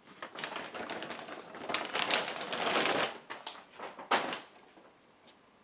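Clear plastic bag crinkling and rustling as it is handled and pulled away, for about three seconds. A few light clicks follow, then one sharp knock about four seconds in.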